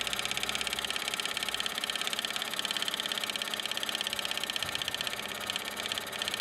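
1929 Meccano engine running steadily, driving a Mamod WS1 workshop's line shaft and pulleys through spring belts: a mechanical whirring clatter with a fast, even beat that falters briefly near the end.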